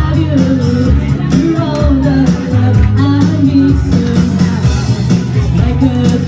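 Women singing through a microphone over a loud amplified backing track with a steady bass line.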